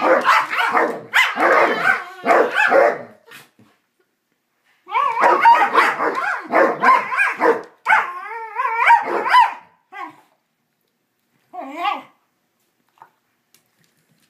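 Two basset hounds barking and vocalizing at each other in rough play, in two dense runs with a short break between. About eight seconds in there are wavering pitched cries. The noise thins to a couple of short yelps and stops about twelve seconds in.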